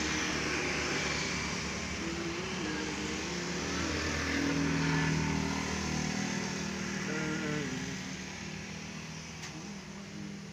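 A motor vehicle passing by, its engine sound swelling about four to five seconds in and fading toward the end.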